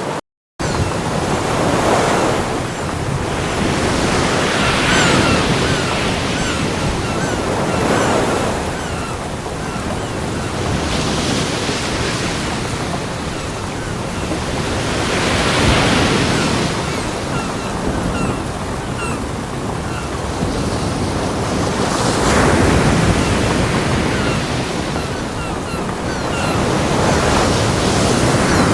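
Ocean waves breaking on a beach, the surf swelling and falling away every few seconds. The sound cuts out for a split second just after the start.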